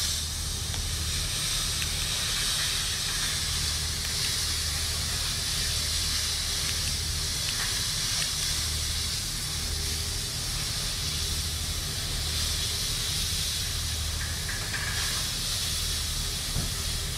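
Gas burning off at a well pad's flare stack at high intensity: a steady hiss with a low rumble underneath.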